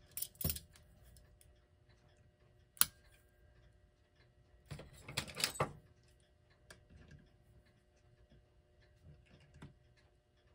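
Small metal hand tools clinking and tapping as pliers are taken up and fitted onto a clock movement's knob shafts: a sharp click about three seconds in, a short run of clatters around five seconds in, then light scattered ticks.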